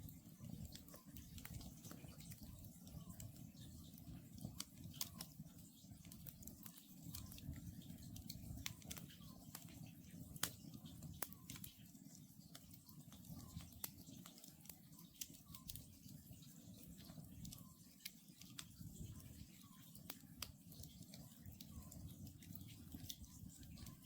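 Wood campfire crackling with scattered sharp pops over a low steady rumble, while an Oriental scops owl calls faintly, its short note repeated again and again.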